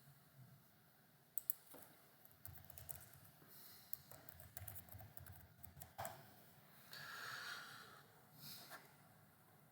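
Faint clicking and tapping of a computer mouse and keyboard, in scattered clicks with a quick run of taps about two to four seconds in.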